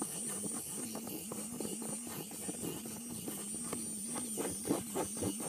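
Light plastic clicks and ticks from a Littlest Pet Shop Walkables dog figure being worked so that it dances, coming more often in the second half.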